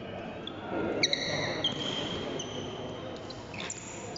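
Court shoes squeaking on a badminton court floor as players shuffle into position: several short, high squeaks, the loudest about a second in, over a murmur of voices in the hall.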